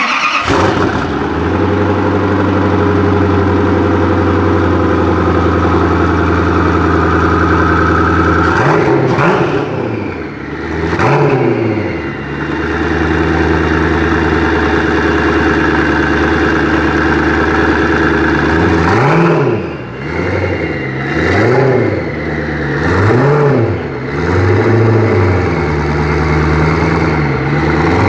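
Koenigsegg supercar's V8 engine, fired up a moment before, idling steadily in an underground car park. About a third of the way in it is revved twice, then it settles back to idle and is given a run of about five quick throttle blips near the end, each rising and falling in pitch.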